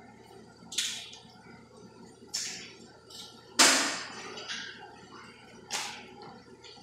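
About six short, sharp sounds, each fading quickly, the loudest just past halfway, from a butcher working a hanging beef carcass with a knife and handling the meat.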